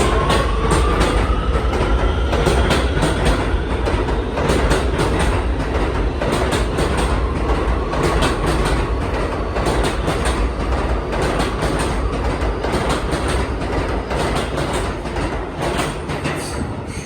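An R211T New York City subway train running on the tracks, its wheels clacking over the rail joints over a steady low rumble. A motor whine rises in pitch over the first few seconds, then fades.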